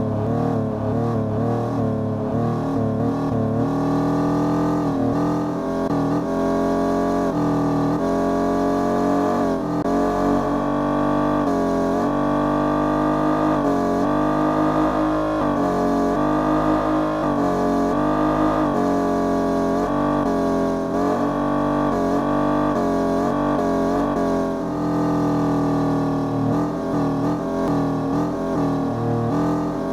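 Car engine and drivetrain running at highway speed, its pitch rising and falling gently with the throttle.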